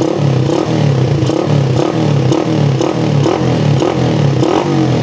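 Bored-up motorcycle engine on a PE24 carburettor revved in quick throttle blips, about two a second, the pitch rising and falling back with each one.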